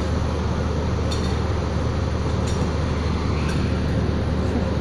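An engine running steadily with an even low hum, with a few faint clicks over it.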